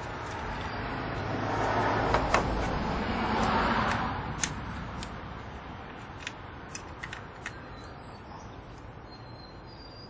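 A passing vehicle swells and fades over a few seconds. A handful of sharp, separate metal clicks come from a wrench on the oil control valve's retaining bolt as it is snugged down.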